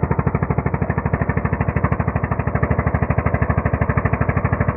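Small fishing boat's engine running steadily under way, a fast, even putter.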